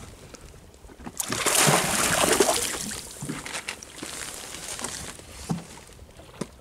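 Sea water splashing and sloshing as a gaffed kingfish is hauled out over the side of a small fishing boat. The splashing is loudest for a couple of seconds, then a few sharp knocks follow near the end.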